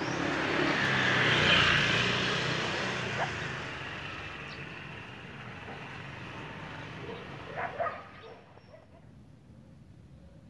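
A motor vehicle passing by: engine and road noise swell to a peak about a second and a half in, then fade out over several seconds. Near the end a dog gives two short barks.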